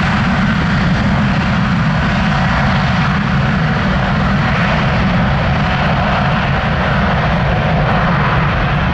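Boeing 777-300ER's GE90-115B turbofan engines running as the jet rolls along the runway: a loud, steady jet rumble and rush that holds an even level throughout.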